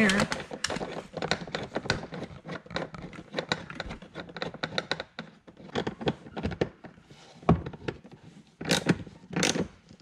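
Hands fitting a small plastic trim piece into a C7 Corvette's interior trim panel: a run of quick plastic clicks, rubbing and handling noises, with a few louder sharp clicks and knocks in the second half as the piece is pressed into place.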